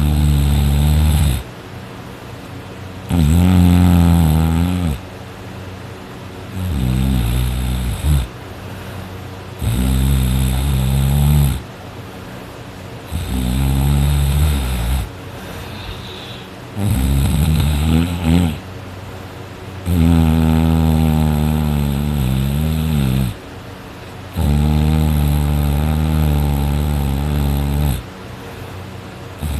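A person snoring loudly in their sleep: about eight long, buzzing snores, one every three to four seconds, each lasting one to three seconds, with quieter gaps between.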